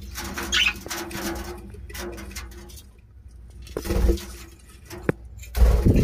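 Aviary birds calling, with a short high call about half a second in. A few light knocks and low thumps come from a budgerigar nest box being handled.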